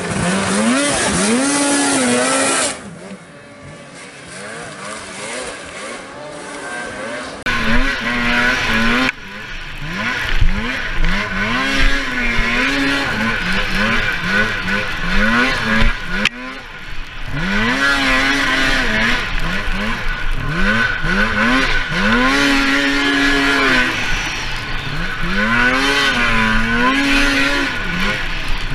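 Racing snowmobile engine revving hard, its pitch climbing and dropping again and again as the throttle is opened and eased. It is heard first from the trackside, then from on board the sled.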